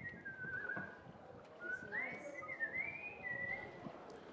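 A person whistling a tune: one clear whistled line sliding between held notes, in two phrases, the second starting about a second and a half in and ending shortly before the end. Faint knocks and background noise lie underneath.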